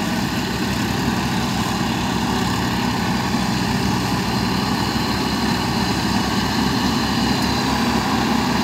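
Massey Ferguson 241 tractor's diesel engine running steadily, with an even low pulse.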